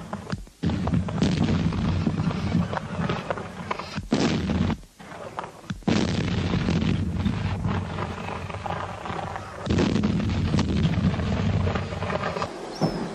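Field artillery guns firing: several heavy booms, about four in all, each followed by a long rumbling roll.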